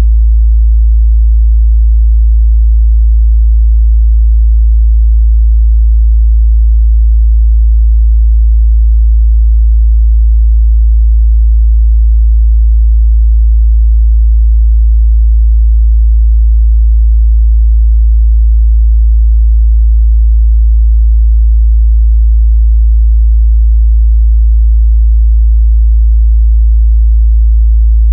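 Steady 55 Hz sine-wave test tone, a constant low bass hum that does not change in pitch or level.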